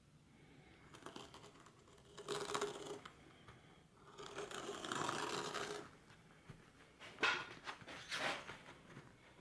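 Utility knife drawn along a steel ruler, slicing through textured seat-upholstery material in two long scratchy strokes, followed by a couple of sharp clicks as the ruler is shifted.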